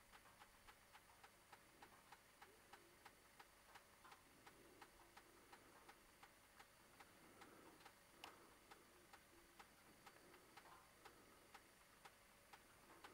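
Near silence with faint, even ticking, about three ticks a second, and one louder click about eight seconds in.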